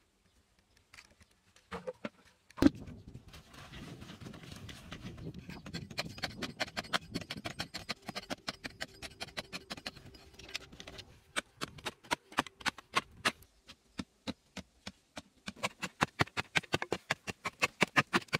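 Wooden stick tamping stony earth around a wooden post: a fast run of sharp, even knocks, several a second, densest near the end. Before that, crunching and scraping of loose gravelly soil, with one sharp knock about two and a half seconds in.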